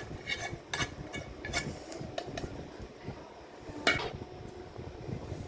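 Metal spoon stirring in a kadai, scraping and clinking against the pan in short knocks, with one sharper clink about four seconds in.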